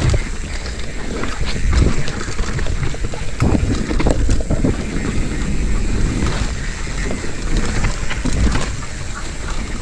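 Mountain bike descending a dirt singletrack: wind rushing over the microphone and tyres rolling over the trail, with frequent short knocks and rattles from the bike over bumps and roots.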